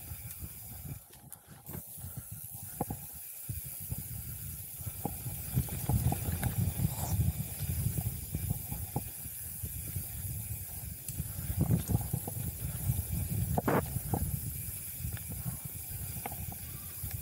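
Mountain bike riding down a dirt trail: low wind rumble on the microphone and a steady hiss, with scattered knocks and rattles from the bike over bumps. It goes briefly quieter about a second in.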